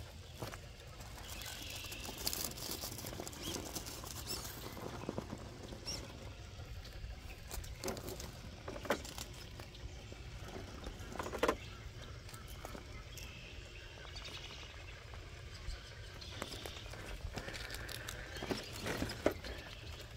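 Traxxas TRX4 scale RC crawler's tyres crunching and scrabbling over rock and gravel as it climbs, with scattered small knocks, two sharper ones about nine and eleven seconds in.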